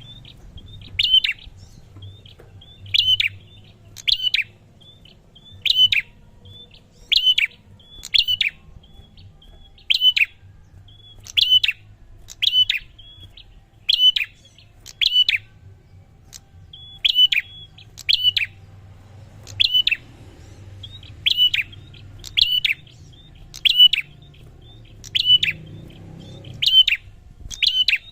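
Prinia (prenjak) calling over and over: a sharp, high double note roughly every second and a half, with softer chips between the calls.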